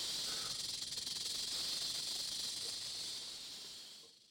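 A steady high hiss that fades out near the end.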